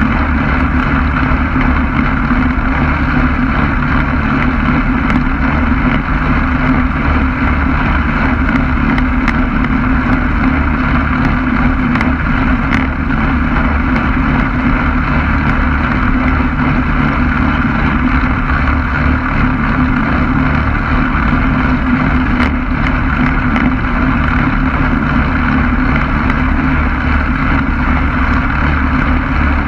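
Quicksilver MX ultralight's engine and propeller running steadily at an even pitch, with wind buffeting the microphone.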